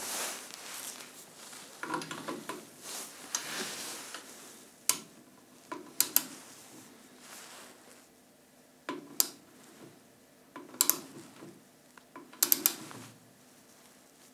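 Hand socket wrenches, a small ratchet and a torque wrench, worked on a bolt through an aluminium fuselage tube: sharp metal clicks and clinks, mostly single, with a close pair about six seconds in and a quick triple near the end. Gloved hands rustle against the tube in the first few seconds.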